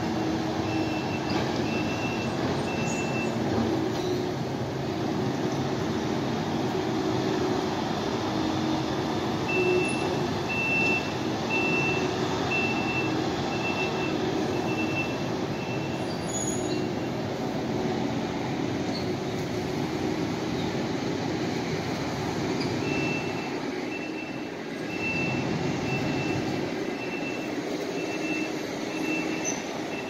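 Heavy road-construction machinery running steadily, with a reversing alarm beeping about once a second in three spells: near the start, from about ten to sixteen seconds in, and over the last seven seconds.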